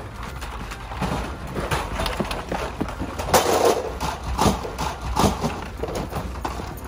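Plastic beer crates full of glass bottles being carried and set down on asphalt: bottles rattling and clinking and crates knocking in quick, irregular knocks, busiest about three and a half seconds in.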